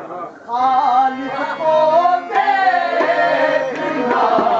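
Men singing a devotional qawwali in unison, with a harmonium playing along; the voices drop out for about half a second at the start, then come back in.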